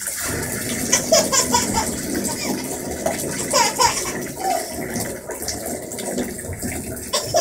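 A thin stream of water poured from above, splashing steadily into a bubble bath. It starts suddenly. Over it come a few short squeals from the baby.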